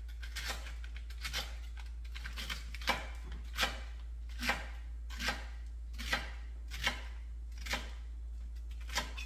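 Chef's knife chopping celery stalks on a thin, flexible plastic cutting board: about a dozen single cuts at a slow, even pace, roughly one every three-quarters of a second, each a short sharp knock of the blade onto the board. A steady low hum runs underneath.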